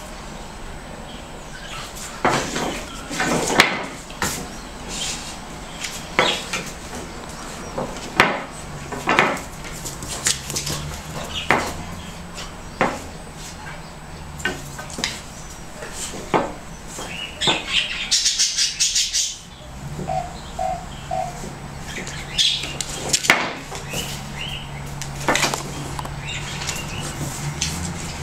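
A Rhodesian ridgeback puppy tussling with a broom: irregular scrapes, knocks and clicks of bristles, handle and paws on the floor. About two-thirds of the way through there is a louder, hissier scrape, followed by three short squeaks.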